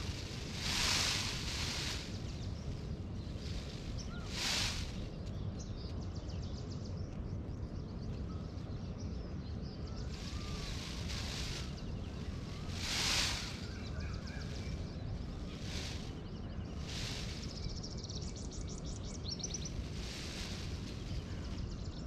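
Outdoor ambience: a steady low rumble of wind on the microphone, with a short hissing rustle every few seconds and a few faint bird chirps.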